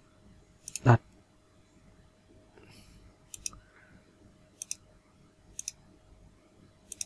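Computer mouse clicks, each a quick double tick of press and release, about five of them spaced one to two seconds apart over a faint steady hum. A brief vocal sound comes about a second in.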